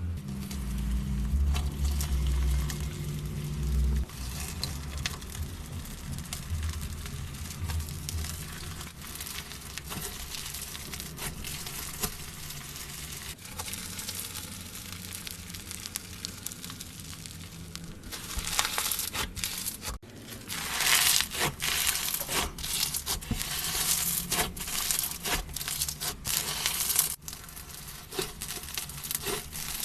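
Slime being squeezed, stretched and poked by hand, making many small sticky clicks and crackles. These grow louder and denser for several seconds later on. A low rumble sits under the first few seconds.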